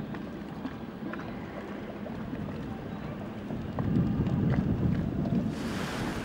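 Wind blowing on the microphone, gusting louder about four seconds in, with a few faint ticks and knocks.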